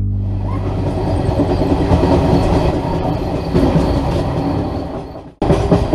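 Passenger train running on the rails: a steady rumble with clatter that fades down and cuts off about five seconds in.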